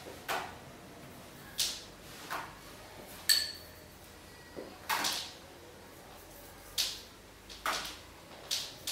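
Paint being worked onto a canvas in short, irregular swishing scrapes, about ten in all, with a light clink about a third of the way in.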